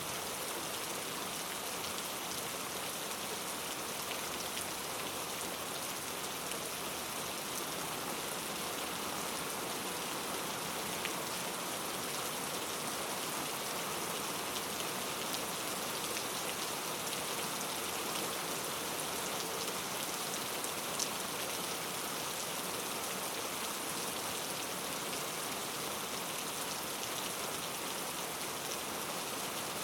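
Steady rain falling on rainforest foliage, an even hiss with the odd louder drop standing out.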